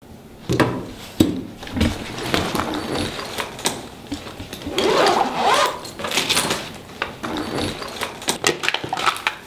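Irregular clicks, knocks and scraping of small objects being handled on a work table, with a longer scrape about five seconds in.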